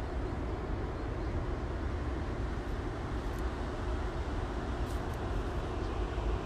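Steady low rumbling outdoor noise with no distinct event, picked up by a handheld phone while walking.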